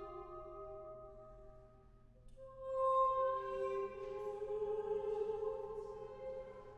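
Women's choir in treble parts (SSAA) singing held chords: a chord dies away about two seconds in, then the voices come back in and swell to a louder sustained chord.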